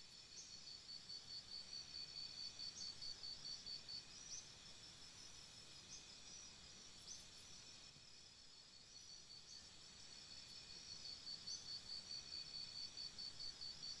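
Faint forest ambience: a high, evenly pulsed chirping of about four pulses a second comes in long runs, with a short rising high note every second or two over a soft hiss.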